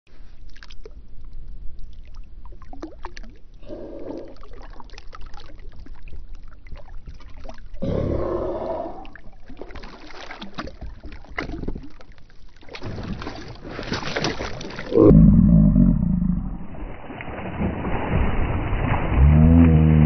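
Water splashing and sloshing beside a kayak as a small hooked shark thrashes and is handled, with wind gusting on the microphone. A sudden loud low rumble of wind and water comes about three-quarters of the way through.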